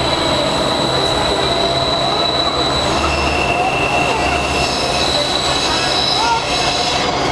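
Light rail train heard from inside a moving car: a steady running rumble with high, steady whining tones whose pitch drops about three seconds in and rises again a second and a half later.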